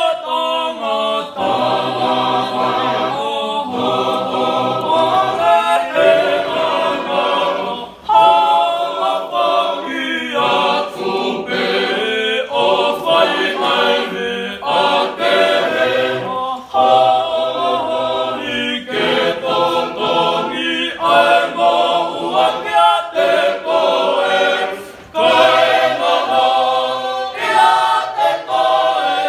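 Tongan church choir singing a hymn a cappella in several parts, in sung phrases broken by short pauses, with strong fresh entries about 8 and 25 seconds in.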